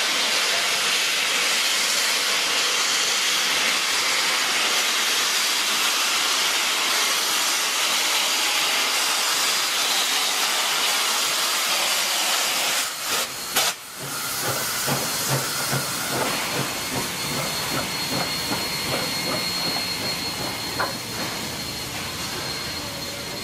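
Steam locomotive 5917, a Baldwin-built New South Wales 59 class 2-8-2, blowing off a loud, steady hiss of steam from its cylinder drain cocks. About 13 seconds in, the sound breaks off sharply. A quieter hiss follows, with a thin steady high tone and soft, irregular chuffs as the locomotive moves slowly along the track.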